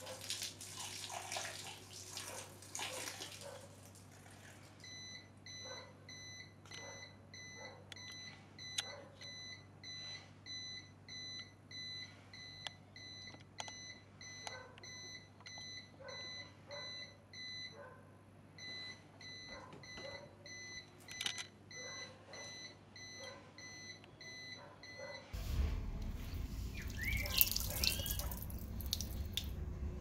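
Water splashing onto the grey multi-socket power strip for the first few seconds. Then the black mains unit feeding the strip gives a steady electronic beep for about twenty seconds, apparently warning of a power fault. Near the end a louder, low rumbling noise takes over.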